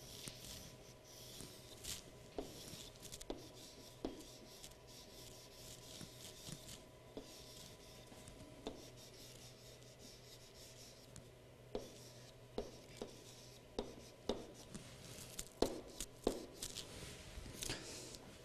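Faint scratching and tapping of a pen-like tool writing looped calligraphy on a chalkboard, in strokes with short pauses and a cluster of sharper taps near the end. A steady faint low hum lies underneath.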